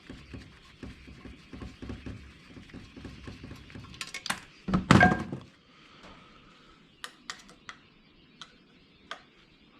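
Parts of a benchtop centrifuge being handled during dismantling: knocking and rattling, then a loud clatter of knocks about four to five seconds in, followed by a few light clicks.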